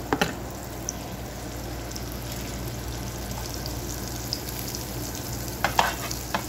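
Butter sizzling as it melts in a hot nonstick frying pan, a steady hiss. A steel spatula clicks and scrapes against the pan once just after the start and several times near the end as it spreads the butter.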